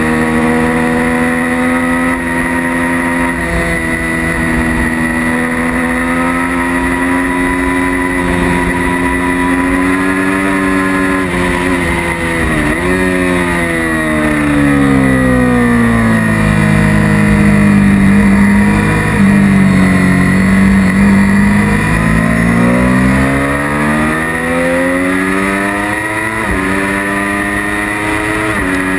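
Sport motorcycle engine heard from on board at track speed over steady wind rush. Its pitch climbs and falls with throttle and gear changes, with quick shifts about eleven seconds in and again near the end. Around the middle the pitch sinks to its lowest, and the engine is at its loudest, before it climbs again.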